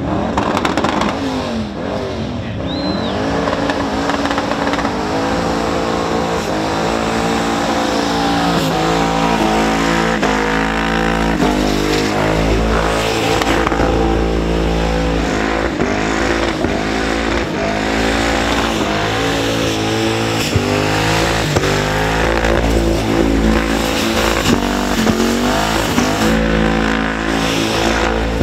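Twin-turbo Holden Commodore ute doing a burnout: the engine revs hard, its pitch rising and falling again and again, while the rear tyres spin and squeal on the pad.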